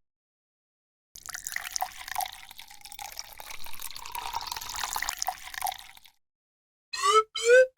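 Water trickling and splashing for several seconds, cut off abruptly, then near the end two short rising 'bloop' sound effects.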